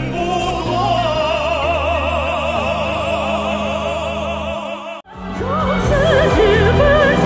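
Operatic-style male voices singing a Chinese song with wide vibrato over orchestral accompaniment. About five seconds in, the music cuts off abruptly and a different song begins: vibrato singing over orchestra.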